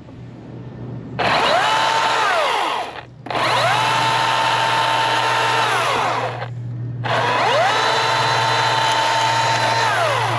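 Milwaukee battery-powered top-handle chainsaw run three times while limbing a felled treetop. Each run is a whine that rises to a steady pitch, holds for a couple of seconds as the chain cuts, then falls away as the trigger is released, over a steady low hum.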